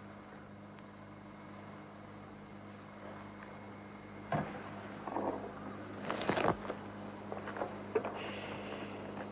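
Crickets chirping steadily, about two chirps a second, over a low steady hum. From about four seconds in there are short clicks and rustling noises, the loudest a little past the middle.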